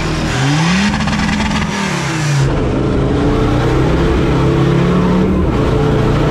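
Off-road 4x4's engine revving up and falling back, then running steadily with small changes in engine speed, as while crawling over rough ground.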